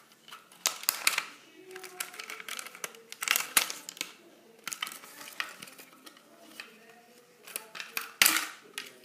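A plastic toy barn and its packaging being handled and opened: scattered sharp plastic clicks, rattles and crinkles, the loudest about eight seconds in.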